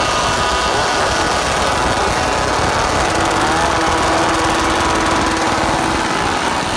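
Several two-stroke chainsaws running and revving together, held up by a crowd. The engines make a dense, continuous buzz whose pitch rises and falls.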